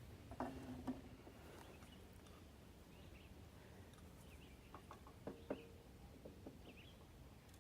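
Faint clicks and light metal knocks of a replacement pressure-washer pump being handled and slid onto the engine's crankshaft, mostly in two small clusters: one about half a second in and one around five seconds in.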